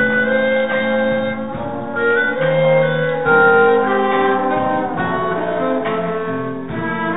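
Jazz band playing a slow ballad: horns hold sustained chords while the notes shift every second or so.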